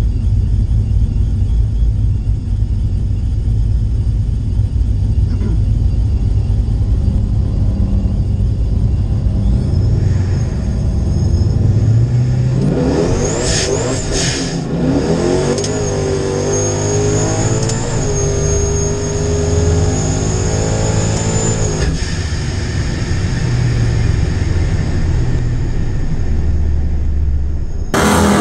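Supercharged 392 Hemi V8 in a RAM 1500 pickup, heard from inside the cab. It rumbles at low revs, then about twelve seconds in it revs up hard and pulls under load for about nine seconds, the pitch stepping up and down, with a high supercharger whine over it, before dropping back.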